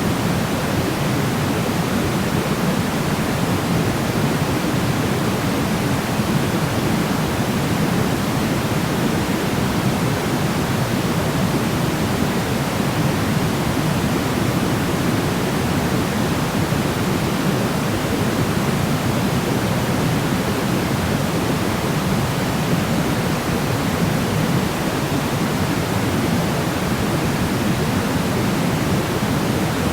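Steady sleep noise: an even, unchanging hiss with no pitch or events, weighted toward the low end so that it sounds deeper than pure white noise, like pink noise.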